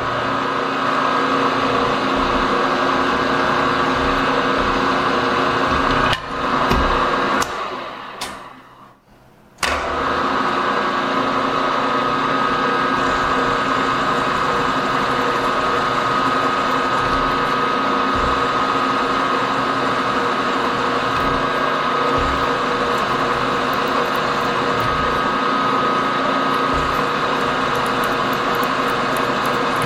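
Milling machine spindle running steadily as a twist drill bores holes in an aluminium plate. The sound drops almost to quiet for about a second around nine seconds in, then the steady run resumes.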